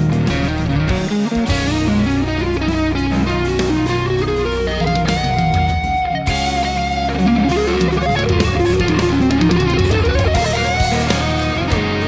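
Fender American Performer Stratocaster electric guitar through a mid-gain crunch tone, playing a lead melody. About halfway it holds one long note with slight vibrato, and near the end it slides up in pitch.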